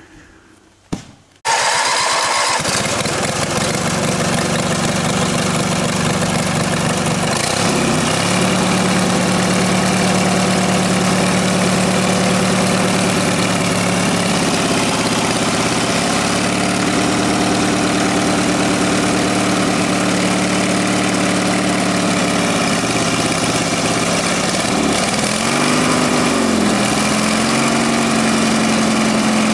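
Sawmill engine starting about a second and a half in, then running steadily, its pitch dipping and rising briefly a few times.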